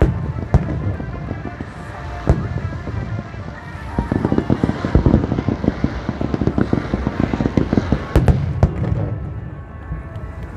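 Aerial fireworks exploding: a few single bangs, then a dense run of rapid cracks and bangs from about four seconds in, easing off near the end.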